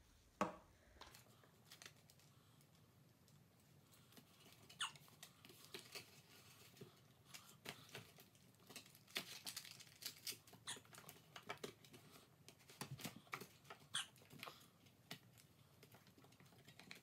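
Faint, scattered small taps, clicks and paper rustles from a paper cutout being glued with a glue stick and pressed by hand onto a picture frame.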